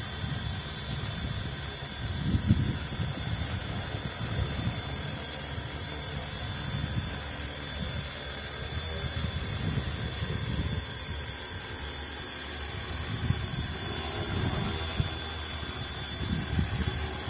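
Large multirotor cleaning drone hovering and climbing, its propellers and motors making a steady drone with a thin high whine, over uneven low gusts. A hiss runs under it from the water jet that the drone sprays from its hose-fed nozzle.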